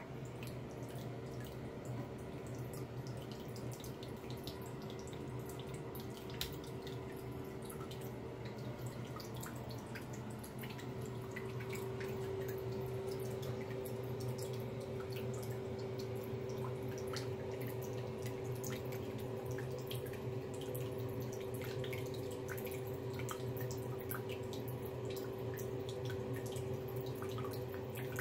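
A thin stream of water trickling from a bathroom faucet into the sink, with many small irregular ticks and drips as a cat laps at the stream. A steady hum runs underneath and grows a little louder about halfway through.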